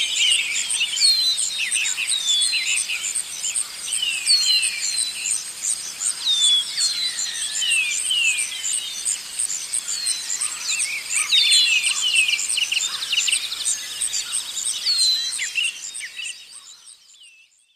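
Forest ambience: many birds chirping with short falling calls over a high, fast, evenly pulsing insect trill. The whole fades out near the end.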